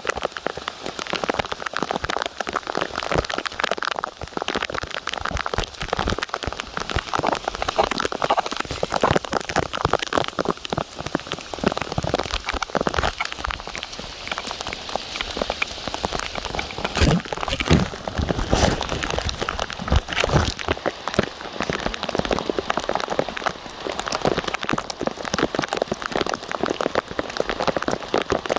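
Rain falling steadily onto a hard surface, a dense patter of individual drop impacts. A few louder, deeper knocks stand out about two-thirds of the way through.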